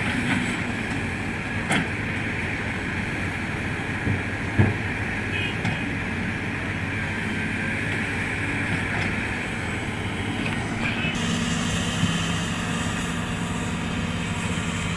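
Heavy hydraulic excavator diesel engines running steadily, with a few sharp knocks, the loudest about four and a half seconds in. About eleven seconds in, the engine note changes and a higher hum comes in.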